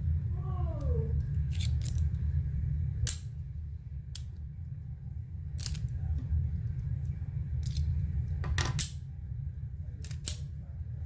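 Sharp metallic clicks from the action of a 1/2.5-scale alloy Colt 1911 miniature model pistol being worked, about ten in all and some in quick pairs, over a steady low hum.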